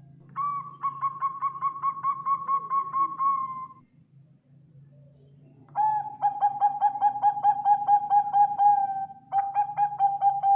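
Bangkok-type zebra dove (perkutut) singing: three phrases of rapid staccato cooing notes on a steady pitch, about three or four notes a second, with a pause of about two seconds after the first phrase and the last running straight on from the second.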